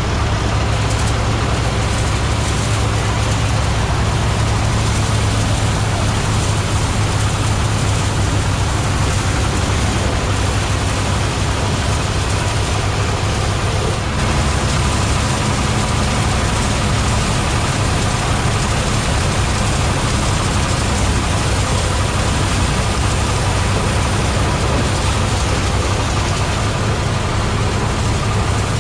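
Mobile rice threshing machine running steadily, a loud, constant engine drone with a strong low hum.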